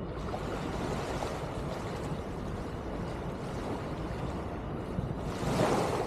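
Shoreline ambience: a steady rush of wind and small waves at the water's edge. About five seconds in it swells briefly into a louder, hissing rush.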